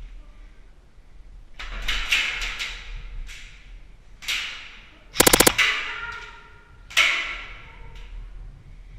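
Airsoft replicas firing: a quick string of sharp shots about two seconds in, then single shots, a rapid full-auto burst of about ten shots in the middle, and a final loud crack that rings on.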